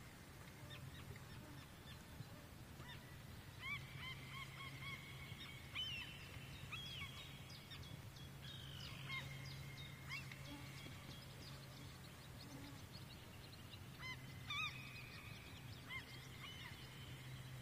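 Distant bird calls: short honk-like notes repeated in several groups, over a faint steady low hum.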